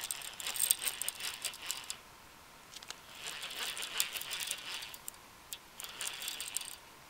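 Fishing reel being cranked in three spells: the gears give a fast clicking whir as a hooked catfish is reeled in, with short pauses between turns.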